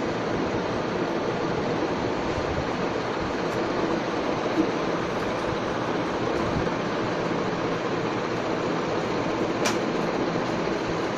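Steady rushing background noise, with one sharp click near the end.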